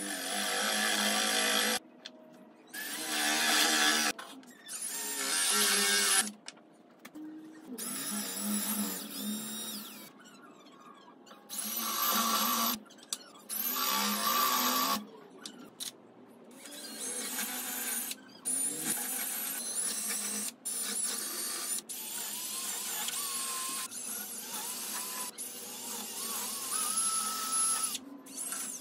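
AEG cordless drill running in repeated bursts of a second or two, drilling into the pine frame of a crib, each burst starting and stopping abruptly.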